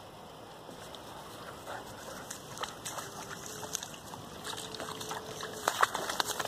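A dog nosing through reeds and duckweed-covered shallow water at a pond's edge: rustling grass and small splashes and crackles that grow busier and louder over the second half.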